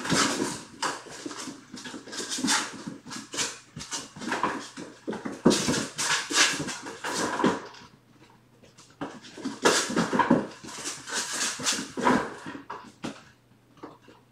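Kittens galloping and scrambling across a hard floor: a fast, uneven run of paw thuds and scuffs, a pause about eight seconds in, then another burst.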